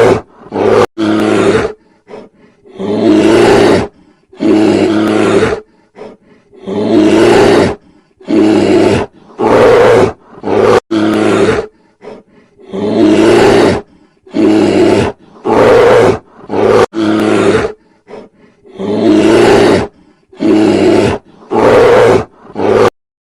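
A large animal roaring over and over in loud calls about a second long with short gaps between them; it cuts off suddenly near the end.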